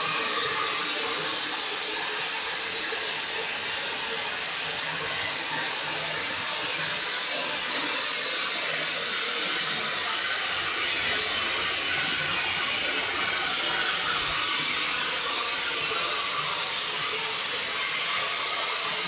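Steady rushing hiss of water flowing through the PVC piping and venturi injectors of a chemical dosing setup, which draw chemical from the tanks through thin suction tubes.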